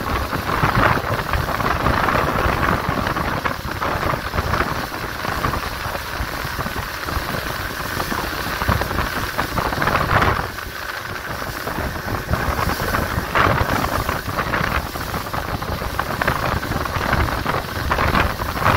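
Wind buffeting the microphone and the rush of churning wake water on a speedboat under way, a steady loud noise with a deep rumble.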